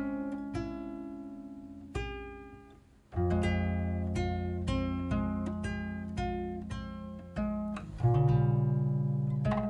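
Background music: acoustic guitar, plucked and strummed notes, thinning out briefly about three seconds in before fuller chords resume.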